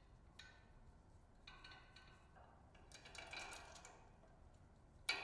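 Faint metallic clinks of hand tools on spark plugs being installed in a motorcycle engine: a few light taps, a brief rattle about three seconds in, and a sharper click with a short ring near the end.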